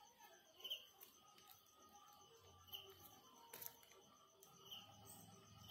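Near silence: faint background hiss with a few short, faint chirps about two seconds apart.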